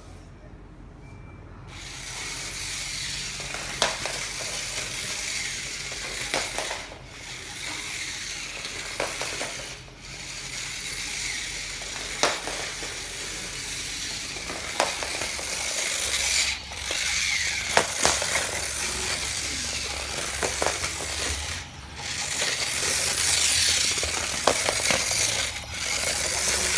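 Battery-powered Trackmaster motorized toy train, just switched on about two seconds in, running on plastic track. Its small gear motor whirs steadily, with a sharp click every two to three seconds as it rattles over the track.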